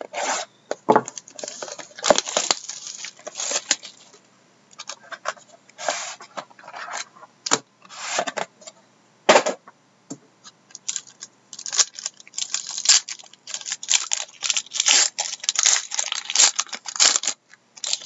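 Plastic wrapping on a sealed box of trading cards being torn open and crinkled, in many short, irregular rustling bursts with a few small clicks from handling.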